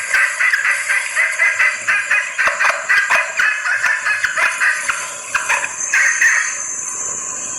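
Junglefowl hen's rapid clucking call, about four to five notes a second, easing off about five and a half seconds in; this is the call of a hen in breeding condition summoning males, used as a trapping lure. A steady high-pitched hum runs behind it.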